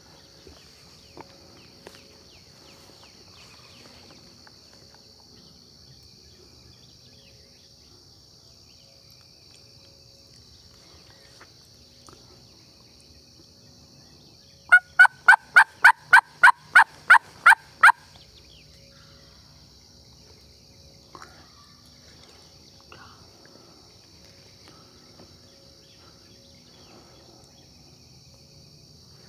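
Hunter's turkey call sounding a run of about eleven hen yelps, roughly three a second, for some three seconds midway through, to draw in gobblers. A steady high insect hum runs underneath.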